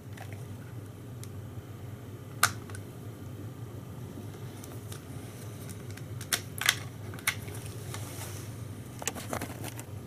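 Scattered plastic clicks and knocks from handling a handheld RJ45 network cable tester, with plugs being pulled from its sockets and the unit set down on the desk; the loudest knock comes about two-thirds of the way in. A steady low hum runs underneath.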